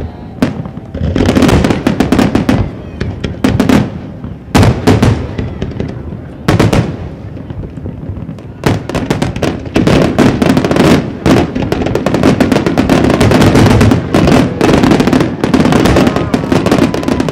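Aerial firework shells bursting in a run of loud bangs, spaced out at first and coming thick and fast from about halfway through.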